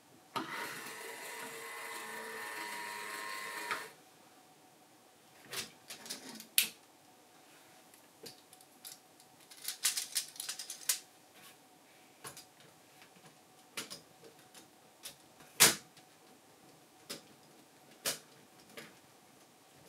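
A Lego electric motor and gear train whirring steadily for about three and a half seconds, turning a Reuleaux-triangle rotor, switched on and off at a Lego battery box. Then scattered clicks and taps of plastic Lego frames being handled and fitted, the sharpest about three-quarters of the way through.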